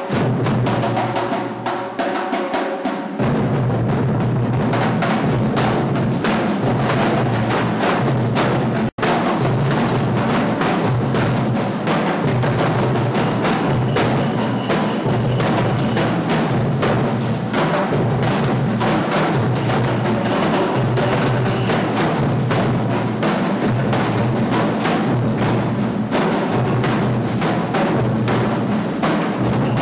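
Percussion ensemble drumming a fast, dense rhythm with deep bass drums underneath. The playing gets fuller about three seconds in and drops out for a split second about nine seconds in.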